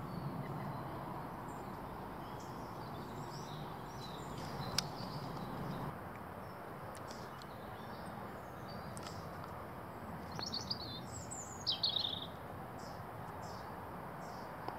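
Small wild birds chirping and calling over a faint steady background hiss, with one sharp click a little under five seconds in. The loudest calls are quick runs of falling notes about ten and a half and twelve seconds in.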